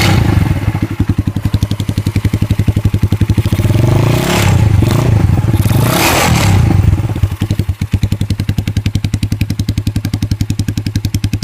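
Kikker 200cc motorcycle engine running with a bad rattle whose cause the owner cannot find; it idles with an even beat, the throttle is blipped twice a few seconds in, and it settles back to idle.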